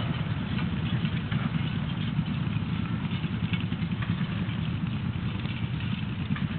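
An engine running steadily, a low rumble that flutters slightly in level, with faint clicks over it.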